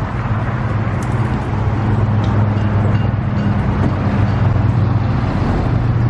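A steady low mechanical hum under an even rush of noise, like nearby road traffic and an idling vehicle.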